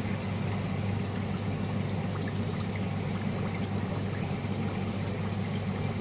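Steady running and trickling water of a marine aquarium's circulation, over a constant low hum from its pump.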